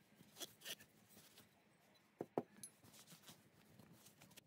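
Faint rustling of a cloth rag wiping an old air gun's steel barrel, with two quick soft knocks close together a little after two seconds in.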